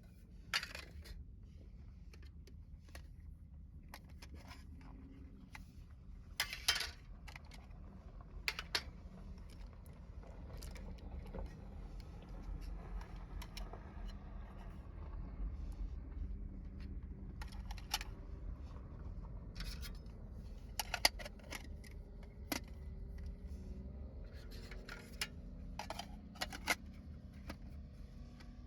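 Small metal camping gear being handled: scattered clinks and scrapes of metal parts, a few sharper knocks standing out, over a steady low rumble.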